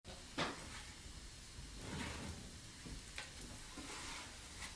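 Wood fire and embers under a copper baking tray in a bake oven: a steady faint hiss with a few sharp crackles or knocks.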